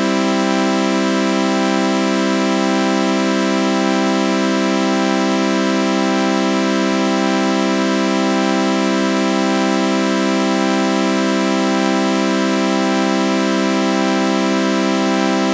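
Synthesized sawtooth-wave chord with a flanger effect: a steady, buzzy organ-like drone, its tone sweeping faintly and regularly about once a second.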